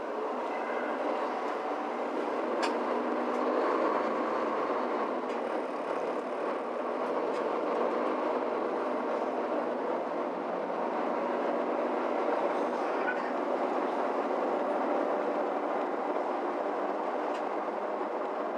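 Cabin ride noise of a Mercedes-Benz Citaro C2 G articulated city bus under way: a steady blend of engine, running gear and road noise, with a few faint rattling clicks.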